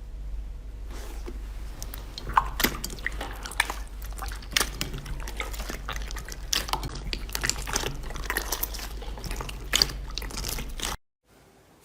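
Slime being squeezed and pressed by hand: a dense run of wet, sticky clicks, crackles and squishes. A steady low hum runs underneath, and everything drops out suddenly near the end.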